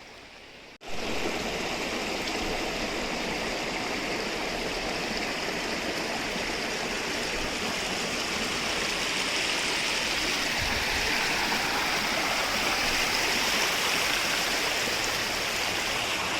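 Stream water rushing steadily, a loud even flow that starts suddenly about a second in and cuts off suddenly at the end.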